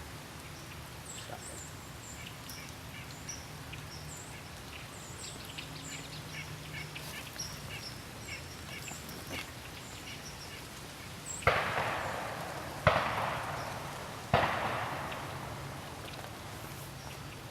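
Three distant shotgun blasts about a second and a half apart, each a sharp report trailing off in an echo, fired as a noise test heard far from the range. Birds chirp faintly throughout.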